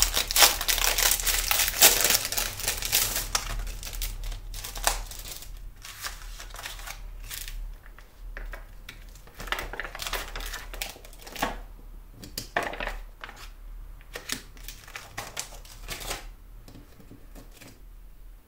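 Crinkling and crackling of a clear-stamp sheet's plastic packaging being handled and a stamp peeled off its backing sheet. It is loudest and continuous for the first few seconds, then comes in short bursts, dying away near the end.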